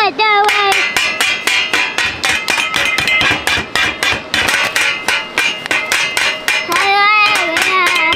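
A toddler drums with wooden spoons on a stainless steel camp pot and its lid: quick clanking strikes at about four or five a second, each with a metallic ring. A young child's high voice calls out happily at the start and again near the end.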